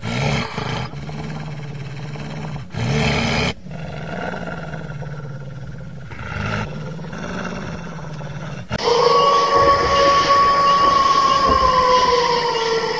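A dubbed low roar sound effect with a few louder surges. About nine seconds in it gives way to a loud, steady whistle like a train whistle, which dips slightly in pitch near the end.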